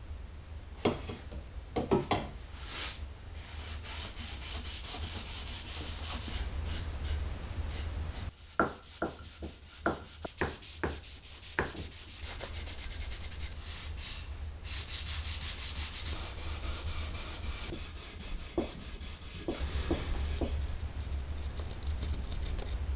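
Electric sander running over wooden chair parts, a steady low motor hum with a gritty hiss of sandpaper on wood. A quick run of sharp knocks comes about halfway through, with a few more near the end.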